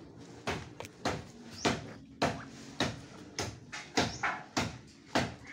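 A blade chopping into tree wood: a string of sharp knocks, roughly two a second, slightly uneven.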